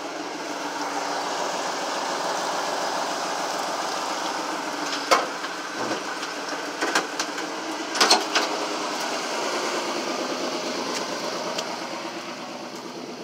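Vehicle engine running steadily while driving through floodwater, with a steady rushing hiss of water and a handful of sharp knocks and clunks from the body in the middle.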